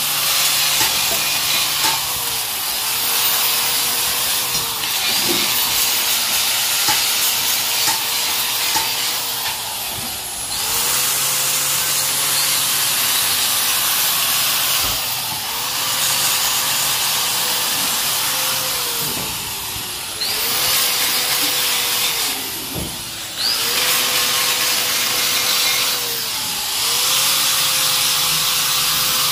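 Handheld power tool working rust off a motorcycle's steel exhaust pipe to clean it, in several long passes of a few seconds each with short breaks between. Its motor tone sags at the end of each pass.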